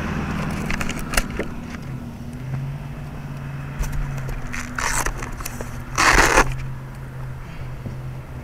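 Handling noise: scattered clicks and rustling, with two louder scraping rushes about five and six seconds in, over a low steady hum.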